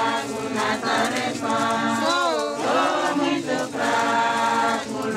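A choir of voices singing in long held notes, phrase after phrase, with one wavering glide in pitch about two seconds in.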